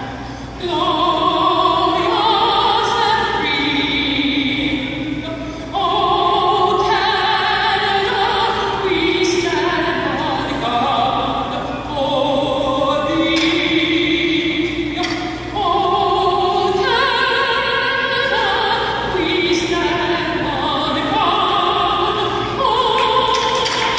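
Solo soprano singing a national anthem, a woman's voice in an operatic style, phrase after phrase of long held notes.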